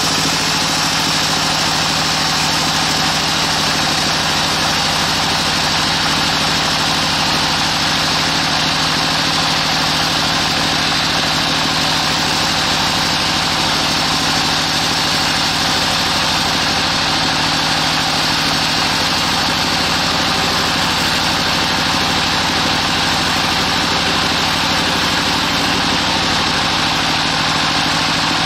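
Band sawmill running steadily with its blade cutting through a large agathis (damar) log: a constant motor hum under a continuous hiss of sawing, with no change in pace.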